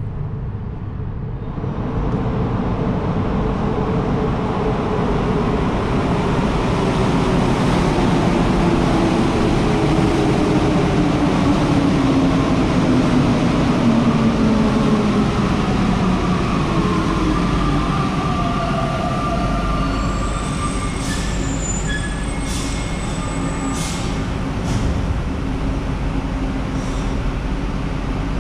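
Santiago Metro Line 1 train running, loud, with a whine that falls steadily in pitch over about fifteen seconds; higher steady tones and a few sharp clicks follow near the end.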